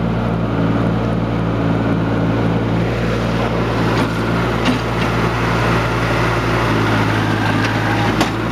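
New Holland TC compact tractor engine running steadily, a constant low hum, with a few faint knocks.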